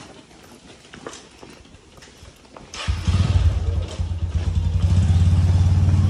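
Motorcycle engine starts up suddenly about three seconds in and keeps running steadily close by.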